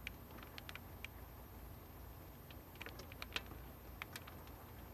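Rain: single drops ticking irregularly, a few a second, over a faint steady hiss and a low rumble.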